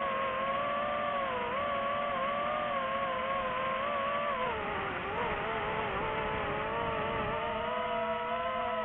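DJI FPV drone's motors and propellers whining steadily, the pitch wavering with throttle, dipping about halfway through and then climbing back.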